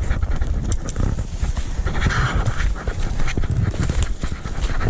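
A man breathing hard in excitement, over a low rumble, rustling and the knocks of handling.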